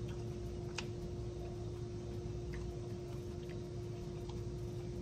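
A few faint, sharp crunches, irregularly spaced about a second apart, from chewing a wrap with raw bell pepper in it, over a steady low hum.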